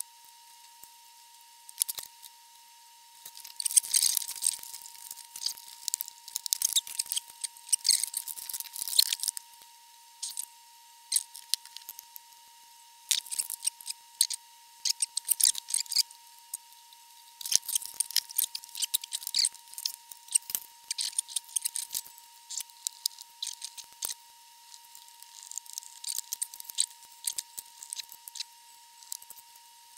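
Hands handling wires and small parts at a workbench: scattered clicks, rustles and light clatters in clusters, over a faint steady high-pitched tone.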